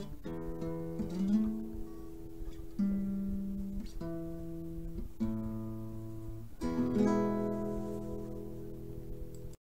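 Acoustic guitar music: slow chords and plucked notes, each left to ring, with a fresh strum every couple of seconds. It cuts off suddenly at the end.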